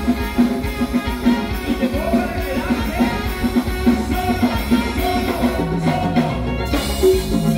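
Live band playing upbeat Latin dance music with a steady beat, the electric bass and drum kit driving the rhythm.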